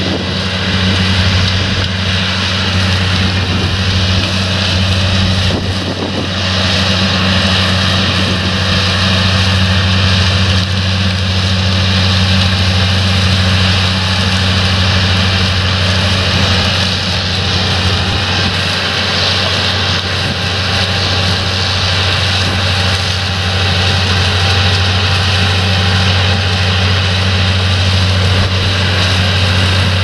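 Dewulf RA 3060 self-propelled potato harvester running steadily while lifting potatoes: a deep engine hum over the even noise of its lifting gear working through the soil, with a faint steady high whine.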